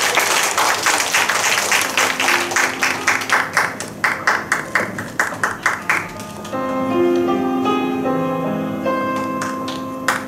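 Audience applauding, the clapping thinning to a few scattered claps, then soft instrumental background music comes in about six seconds in.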